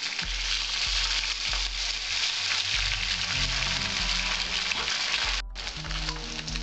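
Katla fish pieces frying in hot mustard oil in a kadai, a steady sizzle with a brief break about five seconds in.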